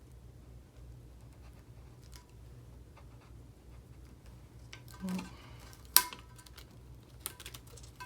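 Light handling noises of fingers pressing a small vinyl sticker onto a tumbler: faint scratches and taps, with one sharp click about six seconds in.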